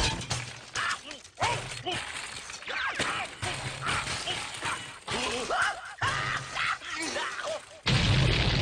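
A run of short cartoon sound effects cut together, with crashes and sliding, wavering tones. Near the end a loud cartoon explosion bursts in, with a deep rumble.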